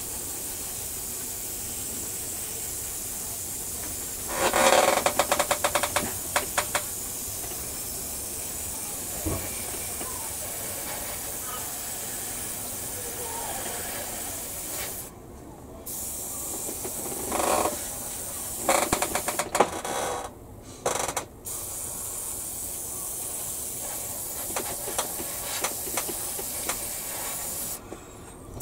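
Airbrush spraying paint with a steady hiss of air. The hiss cuts out briefly a few times as the trigger is let go, and there are a few louder bursts about five seconds in and again near the twenty-second mark.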